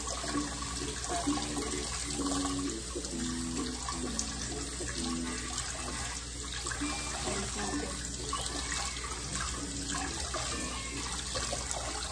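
Kitchen faucet running steadily onto sliced bitter melon and fiddleheads in a colander, with hands turning the vegetables in the stream as they are rinsed.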